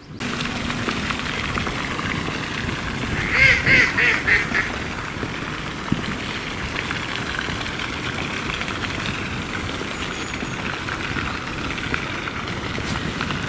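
A duck quacking, a quick run of about five quacks a few seconds in, over steady wind noise.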